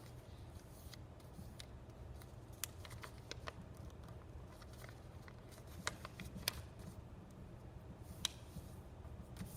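A sheet of paper being flipped and folded into a paper airplane: faint rustling with scattered sharp crinkles and crackles as the triangular fold is pressed and creased.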